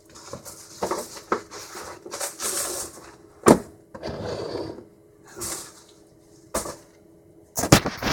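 Packaging being handled: irregular rustling and scraping with scattered knocks, a sharp knock about three and a half seconds in and a quick cluster of taps near the end.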